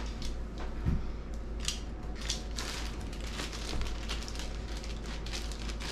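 Crinkly packaging rustling and crackling in hands as a pair of sunglasses is unwrapped, in a run of irregular crackles and small clicks.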